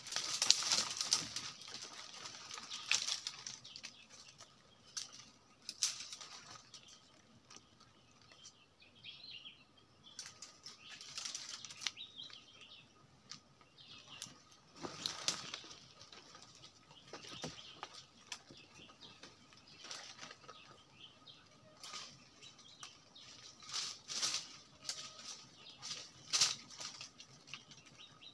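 Branches and leaves rustling and scraping in irregular bursts as a man in rubber boots climbs a tree.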